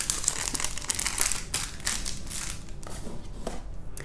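Blind-bag toy packaging crinkling and rustling in the hands, a dense run of irregular crackles as it is handled and searched.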